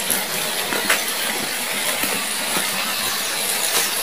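Spring water running and trickling over rocks in a small mountain stream, a steady splashing hiss, with a few faint clicks.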